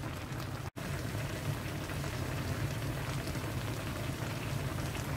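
Spicy Korean tofu stew (dubu-jjageuri) bubbling in a shallow pan, a steady simmering noise with a split-second gap under a second in.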